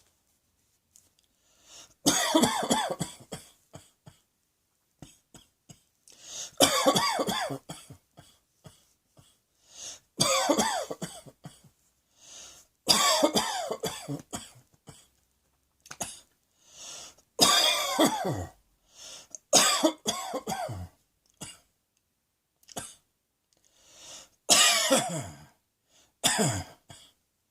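A person coughing in about eight fits, each lasting a second or two and made of several coughs, with short pauses between them.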